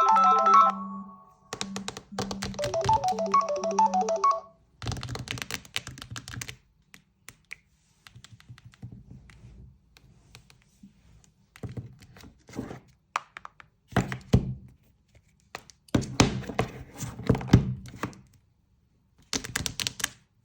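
A mobile phone's incoming-call ringtone plays a short electronic melody twice, then stops about four and a half seconds in. After it come scattered irregular clicks and thunks.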